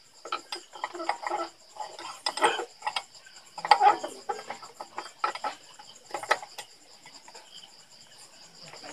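Irregular metallic clinks and clatter of steel gears being handled and slid onto a shaft in a GY6 125 scooter's kickstart gear train, thinning out near the end. Crickets chirp steadily behind.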